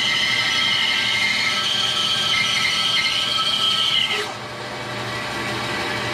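Bandsaw blade cutting through a dogwood limb, a steady high whine from the cut. About four seconds in the blade breaks through and the whine stops, leaving the saw running free.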